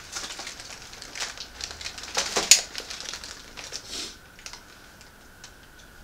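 Plastic snack bags crinkling as they are handled, a run of quick crackly rustles with the sharpest one about two and a half seconds in. It goes quieter after about four seconds, leaving a faint steady high tone.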